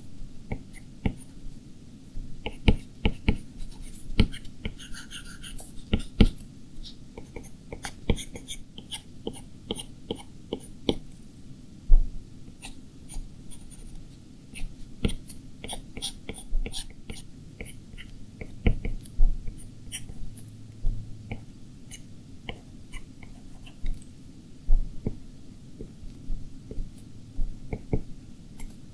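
A stylus tapping and stroking on the glass screen of a 12.9-inch iPad Pro while drawing: irregular short plastic ticks, sometimes in quick runs, over a low steady hum.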